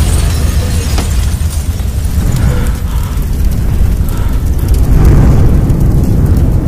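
Loud action-film sound effects: a continuous deep rumble with a sharp hit about a second in.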